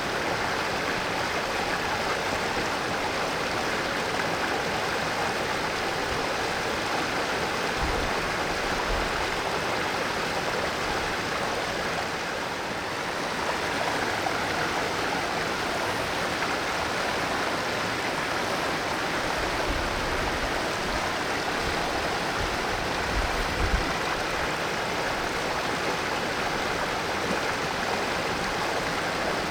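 Mountain valley stream flowing steadily, a continuous rushing of water.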